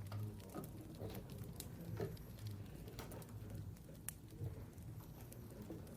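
Scattered small clicks and taps over a low steady hum, the strongest about two seconds in and just after four seconds.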